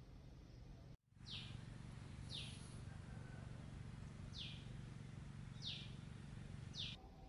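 A bird calling: five short chirps, each sliding down in pitch, spaced about a second or two apart, over a steady low hum. The chirps start just after a cut about a second in.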